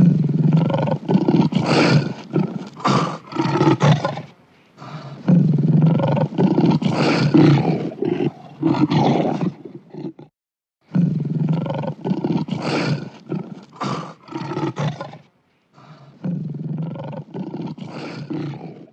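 Lion roaring in several long, rough bouts, broken by brief pauses about ten and fifteen seconds in.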